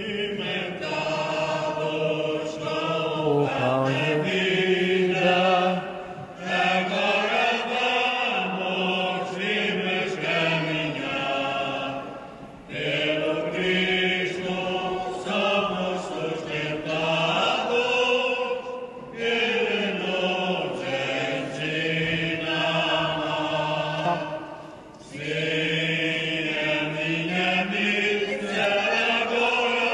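Church choir singing the closing hymn of a Portuguese Mass together, in five long phrases of about six seconds each, with brief breaths between them.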